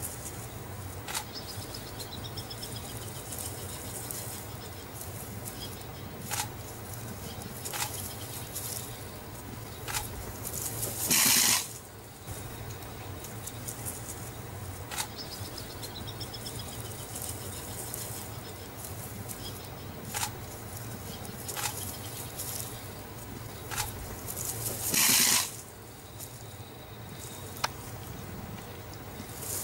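A porcupine rattling its raised quills in three short, loud bursts, over a steady low hum with scattered faint clicks.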